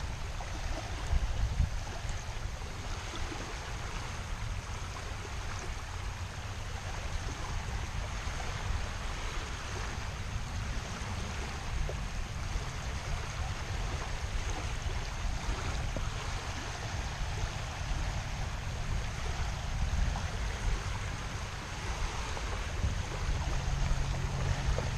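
Small waves lapping and breaking on a sandy shore, with wind buffeting the microphone. A low steady hum joins near the end.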